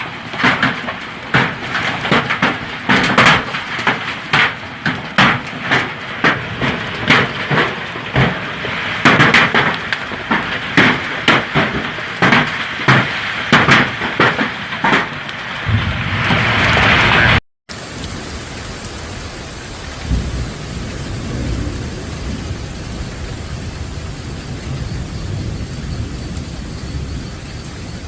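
Severe storm: heavy rain and gusting wind with a dense run of sharp, irregular hits. After an abrupt cut about two-thirds of the way in, a steadier rush of wind and rain with a low rumble.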